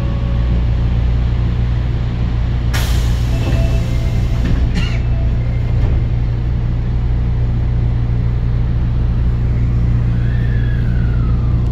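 Osaka Metro 22 series subway car heard from inside as it pulls away from the station, with a steady low hum throughout. About three seconds in there is a burst of air hiss lasting about two seconds, and near the end a whine falls in pitch.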